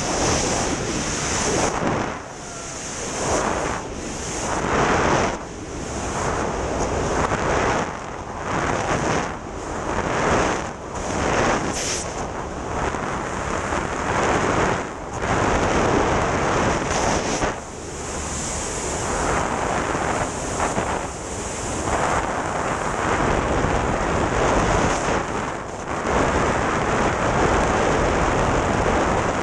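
Freefall wind buffeting a microphone during a tandem skydive: a loud, continuous rush of air that swells and dips every second or two.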